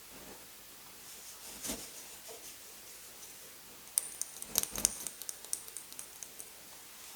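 Tough block of gym chalk mixed with silver glitter being crushed: a soft rustle, then about four seconds in a burst of sharp crunching crackles that thin out over about two seconds.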